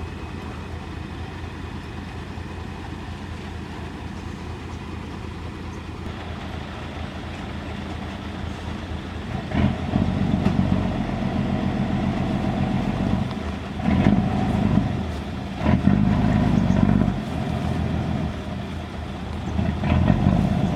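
JCB 3DX backhoe loader's diesel engine running steadily at idle, then revving up repeatedly from about halfway through as the machine works under hydraulic load.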